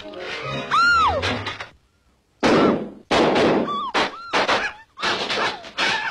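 Vintage cartoon soundtrack: a long falling wailing cry, then, after a brief silence, a run of loud thumps and clattering effects with short yelping squeaks.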